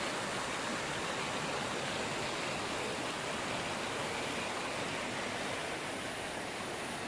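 A small, shallow stream flowing over rocks, making a steady rushing sound that eases slightly near the end.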